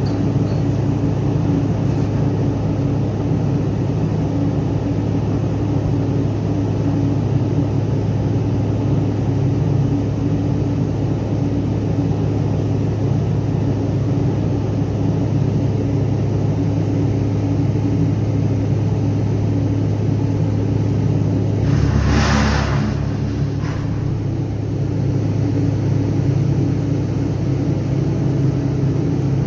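Steady low drone of shipboard diesel machinery running, with a hiss lasting about a second about two-thirds of the way through and a shorter one just after.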